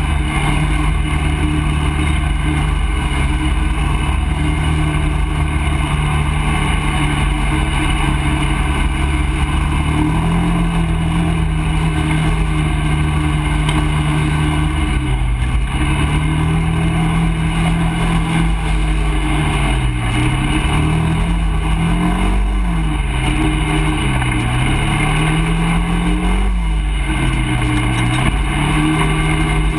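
ATV engine heard from on board while riding, running steadily at first, picking up about a third of the way in, then rising and falling with the throttle several times in the second half.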